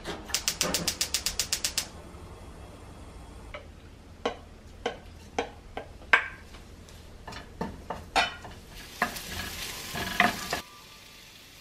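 Gas stove burner's igniter clicking rapidly, about six clicks a second for a second and a half, as the burner lights. Scattered knocks and clinks follow, then near the end soaked dried eggplant sizzles as it is stir-fried in the pan, cutting off suddenly.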